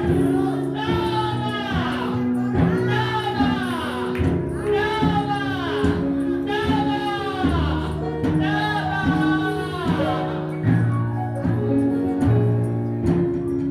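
Gospel worship music: a voice sings repeated phrases over sustained chords and a steady beat.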